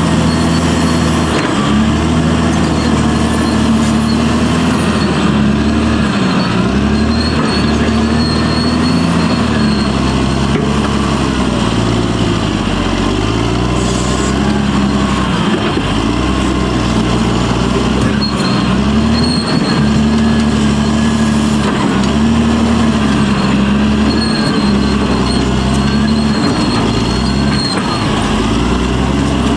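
Caterpillar D6R crawler bulldozer's diesel engine running loud and continuous, its pitch sagging and recovering several times as it takes and sheds load while digging out tree roots. A thin, steady high whine sits above the engine.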